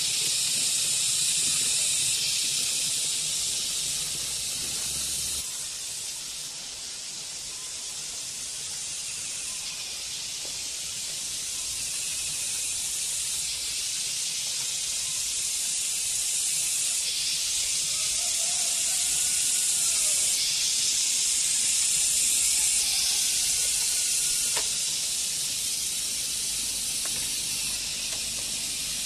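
A steady, high-pitched chorus of insects droning in the surrounding forest, its level stepping up and down a few times.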